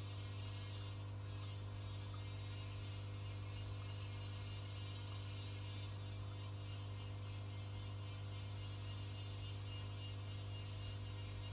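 Steady electric hum of running aquarium equipment, with a fine hiss of airstone bubbles rising in the water.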